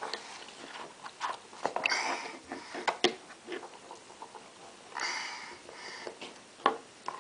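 Faint scattered clicks and taps of a plastic seat buckle being fumbled with small fingers, with two short breathy sniffs or exhales, one about two seconds in and one about five seconds in.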